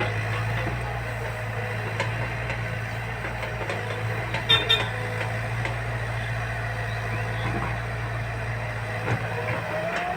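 Diesel engine of a JCB backhoe loader running steadily at work, with two short beeps about halfway through.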